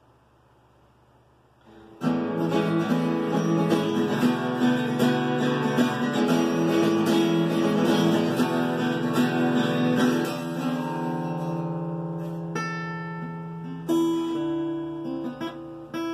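Acoustic guitar strummed, starting about two seconds in. From about ten seconds in the chords are left to ring and fade, with a few single plucked notes near the end.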